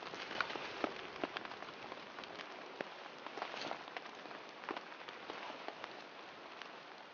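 Small fire of thin twig kindling crackling: irregular sharp pops over a steady hiss.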